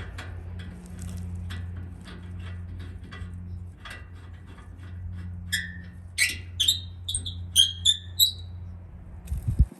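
Tools working the tow hook bracket bolts: scattered light metal clicks, and a run of short high squeaks in the middle, over a steady low hum that cuts off near the end.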